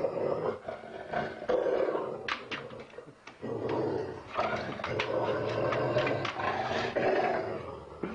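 Large dog growling and scuffling in uneven rough bursts, with a few sharp knocks.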